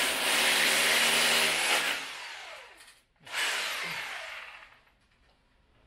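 Corded electric drill boring into the wall in two bursts. The first runs about two seconds and the second starts about three seconds in; each ends with the motor winding down in a falling whine.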